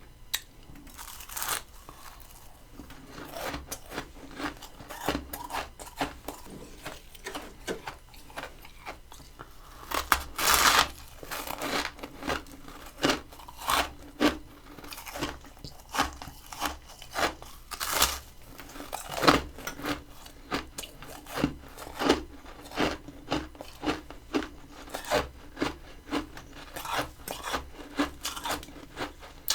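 Crunchy freezer frost being bitten and chewed. Loud bites come about ten and eighteen seconds in. From about twenty seconds on the chewing settles into a steady run of about three crunches every two seconds.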